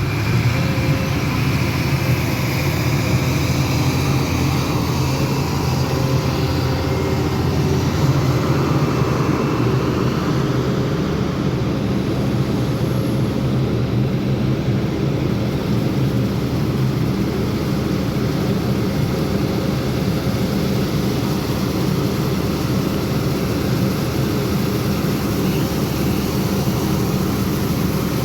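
Heavy diesel engine of construction machinery running steadily under load, with a deep, even drone.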